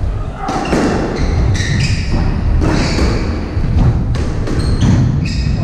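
Squash rally: a squash ball smacked by rackets and cracking off the court walls again and again, with players' shoes squeaking on the wooden floor and feet thudding as they run.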